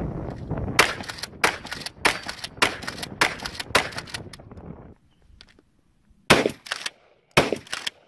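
Pump-action shotgun fired rapidly: six shots about half a second apart, then after a short pause two more shots about a second apart.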